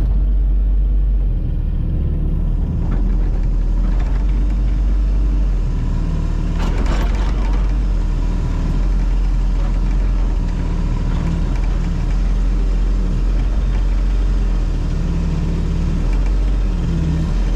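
Excavator's diesel engine running steadily, its low drone stepping up and down a few times as the machine works. A short, harsher burst of noise comes about seven seconds in.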